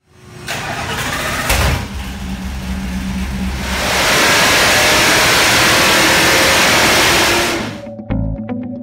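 Ford 7.3L Godzilla V8 running on an engine dyno, building about four seconds in to a loud wide-open-throttle pull that holds for several seconds, then cutting off. Plucked bass music comes in near the end.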